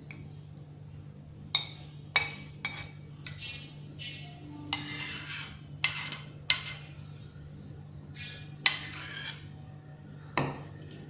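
A spoon scraping and knocking against the inside of a metal pan as thick mango ice-cream mixture is scraped out into a glass dish: about ten separate clicks and scrapes, a second or so apart.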